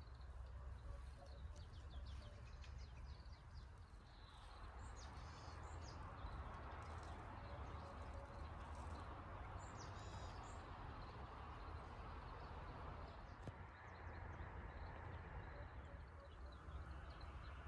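Quiet outdoor ambience at a pond: a steady low rumble under a soft hiss, with faint, short bird chirps now and then, mostly around five and ten seconds in.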